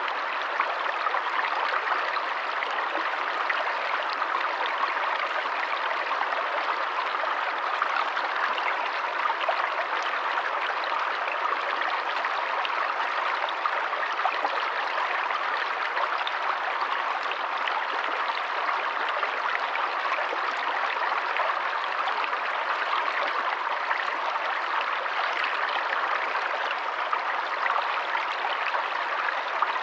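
A small stream running over stones, a steady babble and trickle of water with no change.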